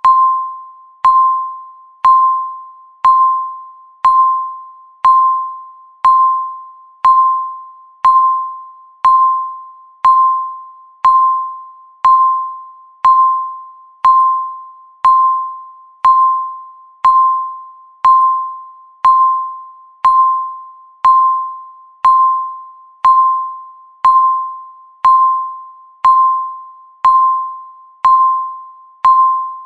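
Countdown timer beeping once every second, one beep for each second left. Each beep is a single clear mid-pitched tone that starts sharply and fades out before the next, repeating evenly about thirty times.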